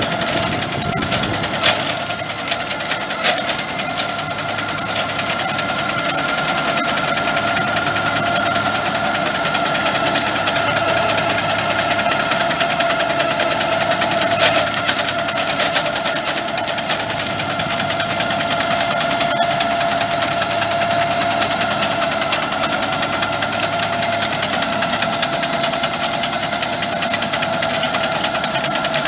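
Rigitrac SKH95 tractor running under working load while its boom-mounted Mense RP 8L clearing shear cuts into brush: a steady engine drone with a constant whine, and a few sharp cracks as branches are cut.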